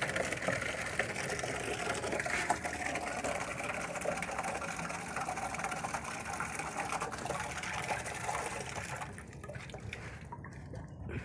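Water running from a wall tap into a plastic bucket, a steady splashing fill; the sound drops away about nine seconds in.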